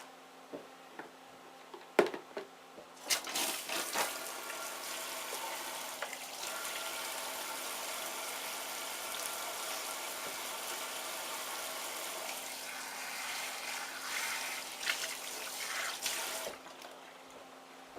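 A knock about two seconds in, then water running steadily for about thirteen seconds before stopping, with a few clatters near the end.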